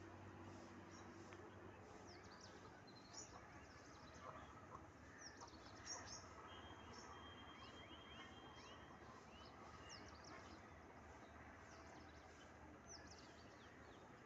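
Faint small birds chirping: many short, high chirps and quick downward-sweeping notes, with a thin trill from about six to nine seconds in, over a steady outdoor hiss.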